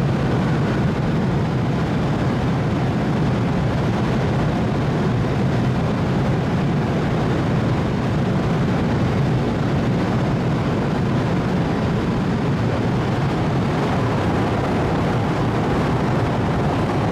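Steady, unbroken low drone of the car ferry Lavender's machinery and ventilation on its enclosed vehicle deck, the ship still under way as it comes alongside to berth.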